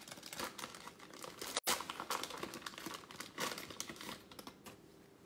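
Plastic wrapper of a football trading-card pack crinkling and tearing as it is opened in the hands, a continuous run of small crackles.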